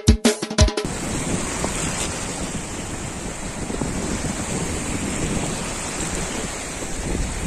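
Small waves washing onto a lake shore, a steady rush with wind on the microphone. The last beats of a drum-led tune stop just under a second in.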